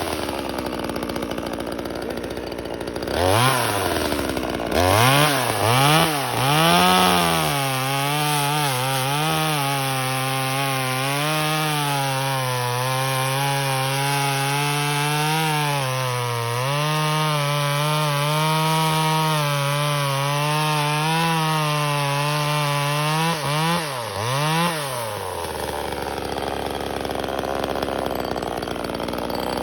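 Small two-stroke chainsaw with a 12-inch bar, revved up and down in several short blips, then held at high revs for about fifteen seconds with its pitch dipping now and then. It is blipped twice more and drops back near the end.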